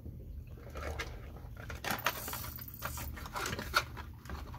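Light handling noise from a 3D-printed plastic quadruped robot being turned over by hand: a few faint clicks and knocks of plastic parts and wiring against each other.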